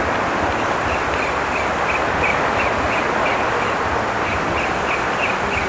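Steady wash of sea-side noise, with a faint, even ticking about three times a second from a Kastking Valiant Eagle 1000 spinning reel being cranked to retrieve the lure.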